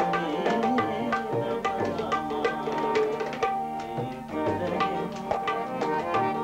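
Ensemble music rehearsal: tabla playing a quick, steady rhythm of strokes under sustained melodic instrument tones.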